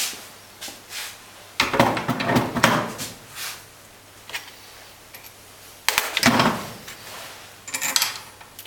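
Metal parts being handled on a bench clamping device: a Bosch truck unit pump and its steel holder knocking and scraping as they are set in place. A few sharp clicks come first, then louder spells of clatter and scraping about two seconds in, around six seconds in, and again near the end.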